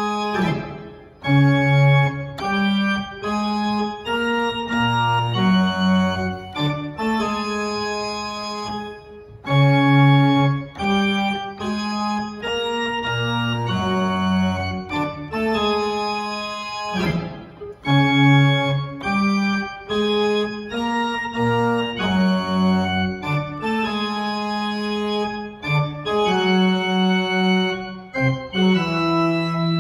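Marcussen & Søn pipe organ played on two manuals: sustained chords changing about once a second over a moving bass line, with a few brief breaks between phrases.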